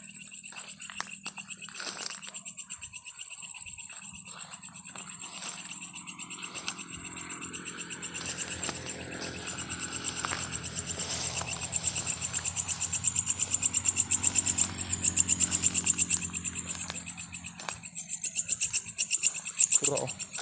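Night chorus of frogs and insects: a fast, continuous high trill over lower calls, swelling louder about halfway through. A few short rustles and clicks come in the first few seconds.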